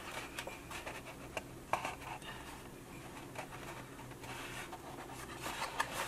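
Fingers pressing and rubbing a printed cardstock strip down onto a paper box: faint paper rubbing and scratching with a few light clicks, busier near the end.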